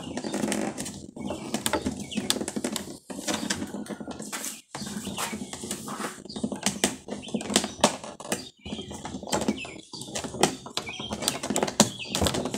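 Hands working at the hatch of a fibreglass RC boat hull to free its small clips: a busy run of irregular clicks, knocks and rustling.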